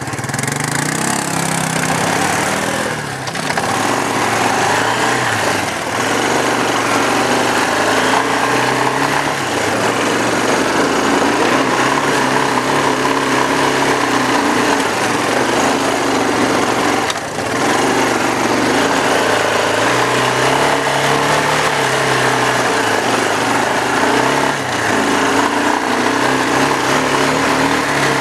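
ATV engine running under throttle on a dirt trail, rising in pitch as it accelerates at the start, then rising and falling with the throttle, with brief drops about 3 and 17 seconds in.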